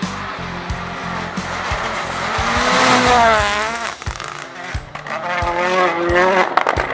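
Toyota Yaris Rally1's turbocharged 1.6-litre three-cylinder engine revving hard as the car slides through a snowy bend and past. The revs rise and fall about halfway through, then climb again near the end.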